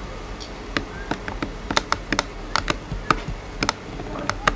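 Keypad buttons of an early Nokia mobile phone being pressed: an irregular series of about a dozen sharp plastic clicks.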